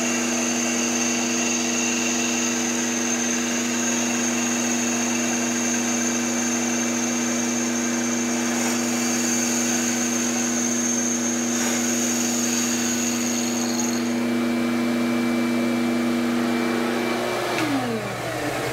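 CNC wood lathe running its finishing cut on a wooden spindle: a steady multi-pitched motor hum with a thin high whine and the hiss of cutting. Near the end a motor winds down, its pitch falling steeply as the cut finishes.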